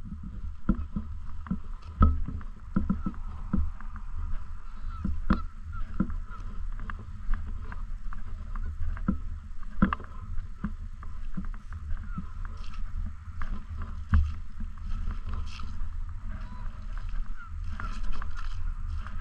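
A flock of Canada geese honking and calling over and over, over a steady low rumble, with many short clicks and knocks mixed in.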